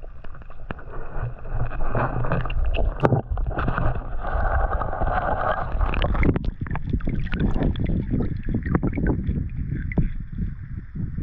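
Water splashing and sloshing in a shallow creek, with irregular knocks and scrapes over a steady low rumble.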